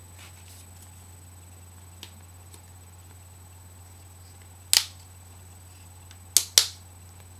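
Flip-up sights on a BT TM-15 paintball marker snapping into position: a few faint ticks, then one sharp click nearly five seconds in and two sharp clicks in quick succession near the end.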